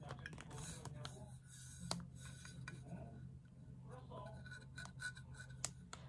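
Light clicks, taps and scratches of small objects and packaging being handled, over a low steady hum; the sharpest taps come about two seconds in and near the end.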